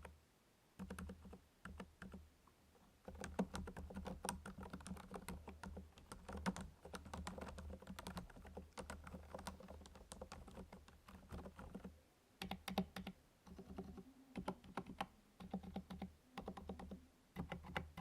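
Steady typing on a MACHENIKE KT68 mechanical keyboard with TTC Silent Ice V2 silent switches, its muted keystrokes brought up by amplification. The keystrokes come in fast runs with short pauses, and the sound is only subtle.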